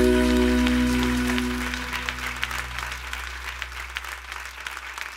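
The last held chord of a worship song fades out over the first two seconds or so. Audience applause starts about a second in and carries on after the music is gone.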